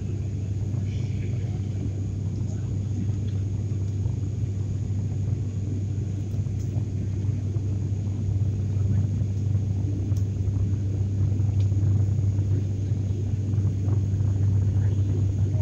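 Airliner cabin noise during the climb after takeoff: a steady low drone from the engines and airflow, growing slightly louder about halfway through.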